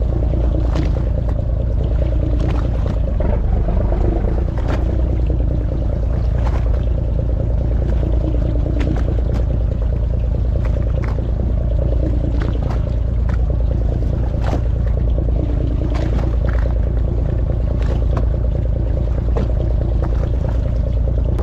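Fishing boat's engine running steadily as a low rumble, with short irregular clicks scattered throughout.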